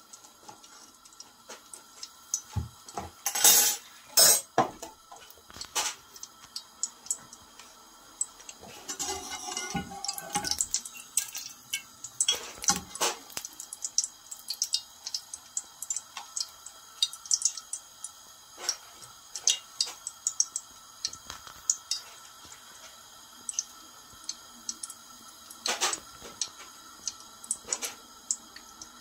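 Ghee melting in hot oil in a frying pan: scattered small ticks and crackles throughout, with a few louder clinks in the first few seconds and a short hiss about ten seconds in.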